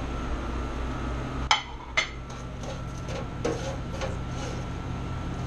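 Two sharp clinks of kitchenware, dishes or utensils knocking together, about a second and a half and two seconds in, then a few lighter knocks, over a steady background hum.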